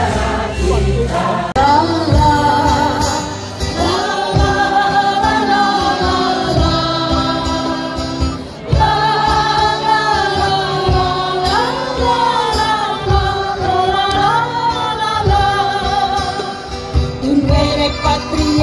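Live band music with group singing over acoustic guitar and a steady beat: an Indonesian-Dutch song sung by several voices at once.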